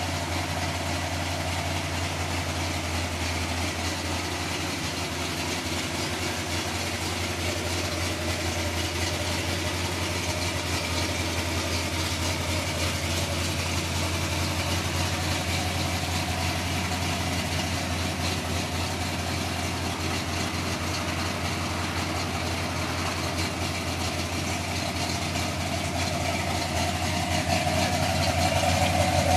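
Chevrolet C10 pickup's engine idling steadily, getting a little louder near the end.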